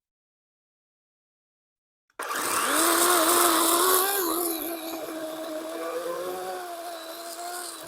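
DeWalt electric chainsaw starting abruptly about two seconds in, rising to speed and then running with a steady high whine over the rattle of the chain, its pitch dipping slightly now and then. It is loudest for the first couple of seconds, then a little quieter.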